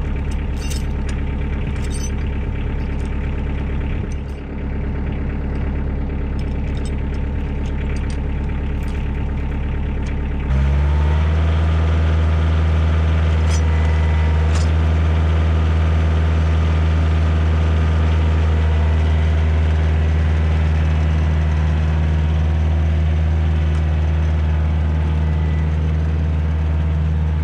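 Kioti DK40 compact tractor's diesel engine running steadily while skidding a log. About ten seconds in, the engine gets suddenly louder and steadier.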